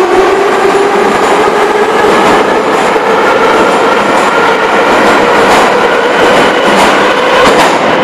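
Moscow Metro Ezh-3/Em-508T subway train accelerating out of the station past the platform: loud wheel and running noise with a slowly rising motor whine, and wheels clacking over rail joints through the second half.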